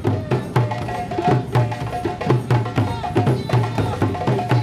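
Drum circle of hand drums, djembes and a frame drum, played together in a steady, driving rhythm of deep thuds and sharp slaps, with a few held higher notes over them.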